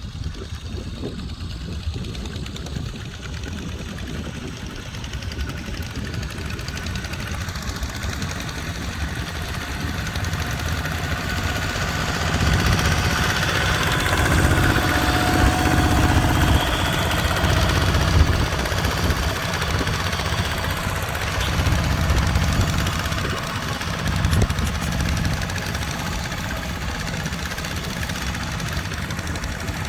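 Tractor engine running steadily, growing louder about a third of the way in, staying loud through the middle, then easing back down.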